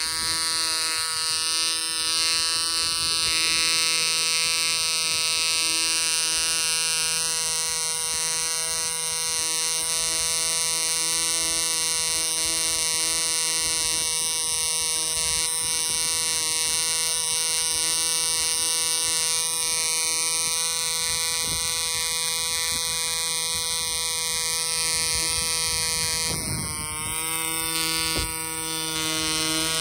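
AE 0.2 c.c. model diesel engine, a tiny two-stroke compression-ignition engine, running steadily at high speed with a high-pitched buzz. Near the end its pitch dips briefly and recovers.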